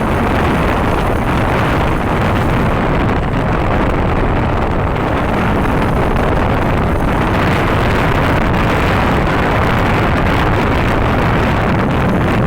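Loud, steady vehicle noise mixed with wind buffeting the microphone.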